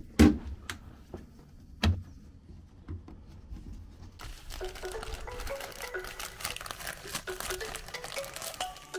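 Brittle, dried-out rubber seal and plastic trim being pried and pulled off a Fiat Uno's body: two sharp snaps, then from about halfway through a steady run of crinkling and crackling.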